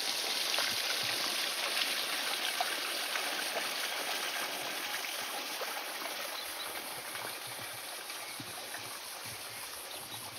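A steady trickling rush with many small scattered ticks, fading in and slowly growing quieter.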